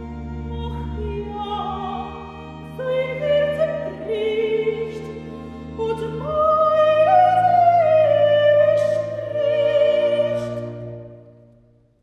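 Soprano singing a German recitative over long held chords from a continuo of chamber organ, cello and double bass. The sung phrases swell to their loudest around the middle, then the voice and the chord fade away near the end, closing the recitative before the next aria.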